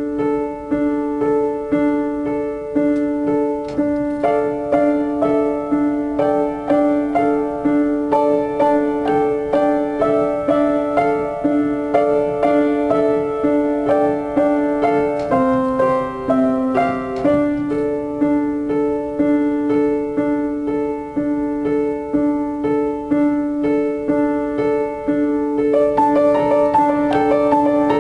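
Upright piano playing a solo new-age piece: a steadily repeated note under a moving melody, growing fuller and a little louder near the end.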